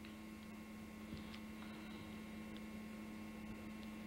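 Steady electrical hum with faint hiss and a few small ticks.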